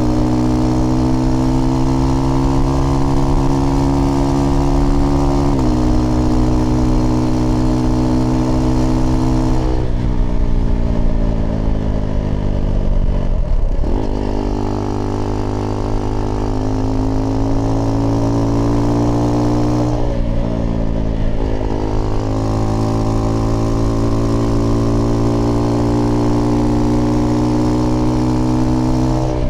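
Single-cylinder engine of a Husqvarna Svartpilen 401 motorcycle running under way through an aftermarket IxRace Mk.2 exhaust with a modified dB killer. Its pitch steps down about five seconds in, sinks from about ten to fourteen seconds, then climbs again, with another brief dip and pickup around twenty seconds.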